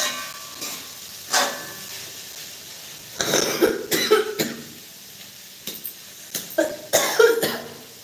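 A woman coughing in several short fits: once about a second in, a run of coughs around the middle, and another run near the end.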